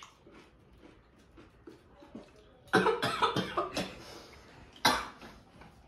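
A person coughing in short harsh bursts: a cluster about three seconds in and one more sharp cough near five seconds, a reaction to the burn of an extremely hot Jolo chili chip just eaten.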